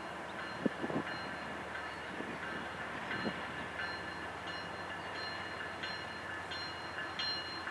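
CSX diesel locomotive leading a loaded coal train, approaching at a crawl with its engine running and a few wheel clicks on the rail. Its bell rings at an even beat, about one and a half strokes a second, growing clearer from about halfway through.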